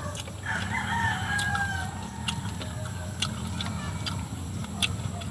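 A rooster crowing once, starting about half a second in and lasting about a second and a half, with small mouth and eating clicks close to the microphone scattered through.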